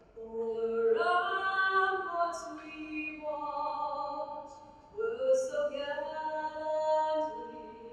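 A woman singing an anthem solo and a cappella, in long held notes. One phrase fades about five seconds in and the next begins.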